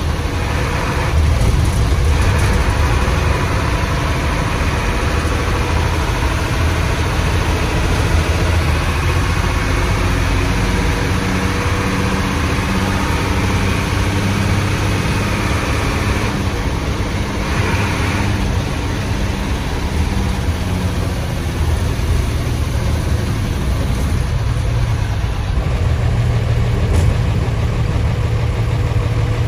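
Old Hino bus's diesel engine running under way, with a low growl from its loud exhaust and the engine note rising and falling.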